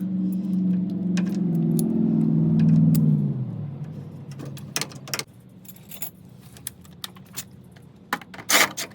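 Metal tools and loose hardware clinking and knocking during a car teardown, with a steady motor hum that drops in pitch and dies away about three to five seconds in. A few sharp metallic clacks follow, the loudest shortly before the end.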